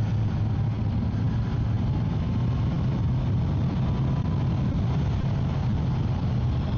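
Motorcycle underway at a steady speed: a constant low engine drone with wind rushing over the microphone.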